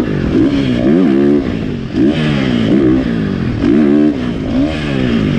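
KTM dirt bike engine revving up and dropping off again and again, about five throttle rises and chops, as it is ridden over a row of supercross jumps.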